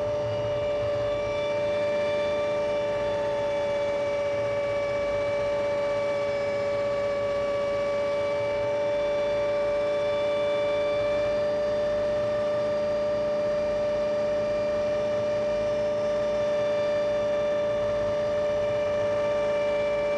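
Light helicopter heard from inside the cockpit in flight: its engine and rotor make a steady drone, with a steady, high-pitched whine running over it.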